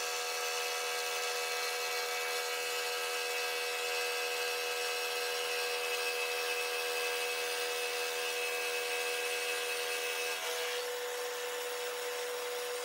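Bridgeport-style milling machine's cutter taking a light cut along the edge of a metal plate as the table feeds it past, bringing the plate down to size. It makes a steady pitched hum under a rough cutting rasp, and the tone shifts slightly about ten seconds in.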